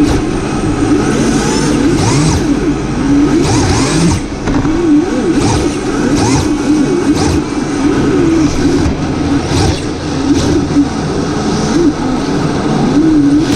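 Electric RC drift car's motor whirring, its pitch rising and falling over and over as the throttle is worked.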